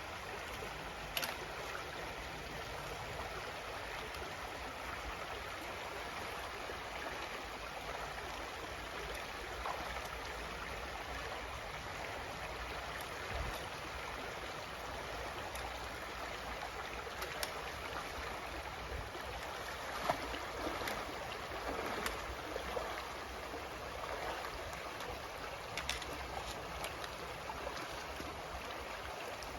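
Mountain creek water rushing steadily over rocks, with a few faint clicks scattered through it.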